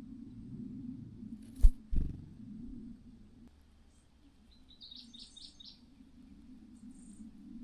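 A quick run of about six short, high bird chirps near the middle, after two sharp thumps a little under two seconds in, over a low steady hum.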